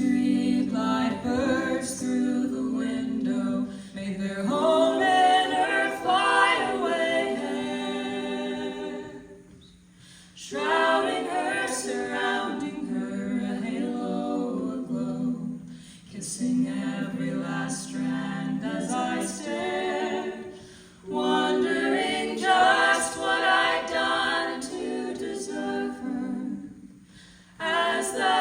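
A small vocal group singing a cappella in harmony, several voices together with no instruments. The singing comes in phrases of about five to six seconds, each broken off by a short breath.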